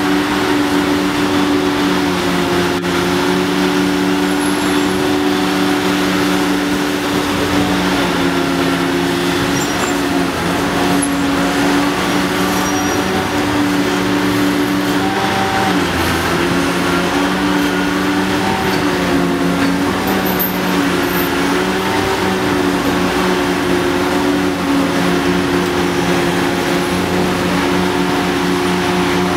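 Hitachi ZX800 excavator's diesel engine running steadily at working speed, a loud drone that sags briefly in pitch a few times midway through.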